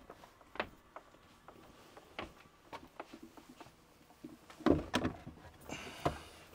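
Light clicks and knocks of the plastic-cased water purification unit being handled and set down, with a cluster of louder thumps about five seconds in, another about a second later, and a brief rustle in between.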